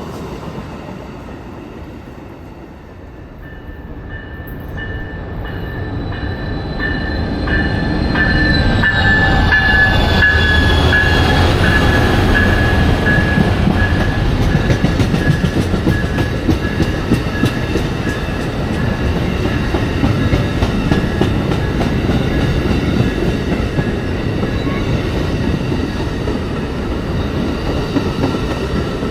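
Passenger train drawing near and rolling past, growing louder over several seconds and then holding a steady clatter of wheels over the rail joints. A high wheel squeal flickers through the middle of the pass.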